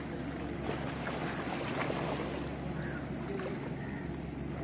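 Steady waterside ambience of wind and water, with a continuous low engine hum from a passing boat.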